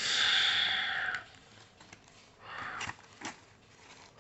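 A person sighing close to the microphone, one long breathy exhale lasting about a second. It is followed by a few soft handling sounds and two sharp clicks.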